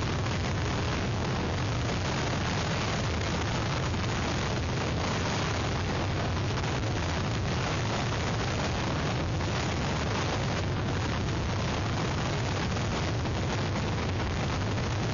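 Hurricane-force wind and rain in a steady, dense rush of noise, with low rumbling buffeting where the wind hits the microphone.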